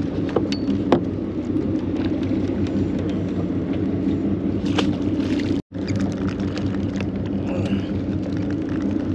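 Steady low drone of the charter boat's engine running, with a few faint clicks and taps over it. The sound cuts out for a split second about halfway through.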